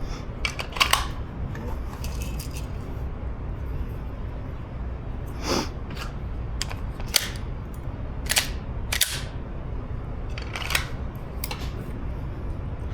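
Scattered sharp clicks and knocks, about half a dozen spread out, over a steady low rumble.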